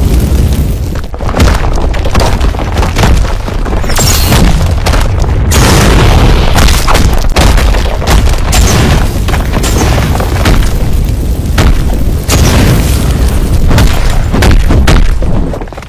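Cartoon action sound effects: a dense run of booming explosions and impacts with crashing, loud throughout, with music faintly underneath.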